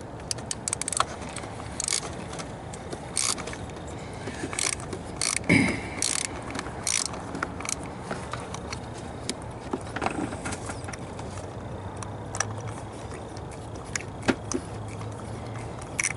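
Socket ratchet clicking in short, irregular runs as it is swung back and forth on a long extension, working loose a tight, rust-threaded old spark plug.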